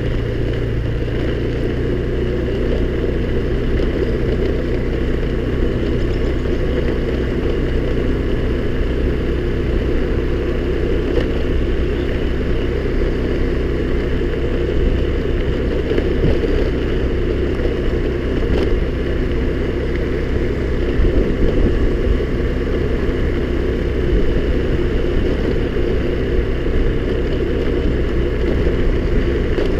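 Honda scooter engine running steadily while riding, with no change in speed.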